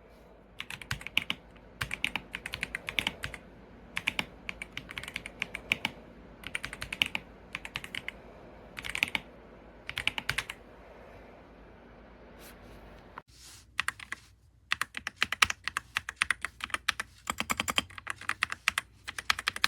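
Typing on a MageGee 68-key magnetic-switch keyboard: bursts of quick keystrokes. There is a pause of a few seconds past the middle, then faster, denser typing toward the end.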